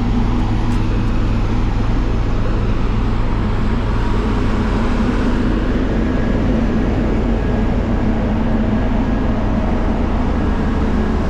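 Steady drone of road traffic and heavy engines running, with no sudden events.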